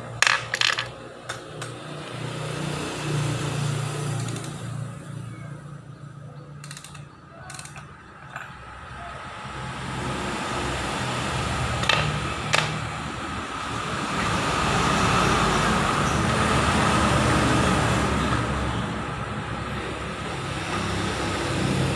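Yamaha R25 parallel-twin motorcycle engine running, with sharp metallic clicks near the start and two more about halfway through.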